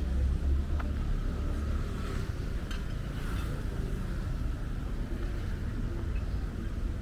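Sea wind buffeting the microphone in a steady low rumble, over an even wash of breaking waves.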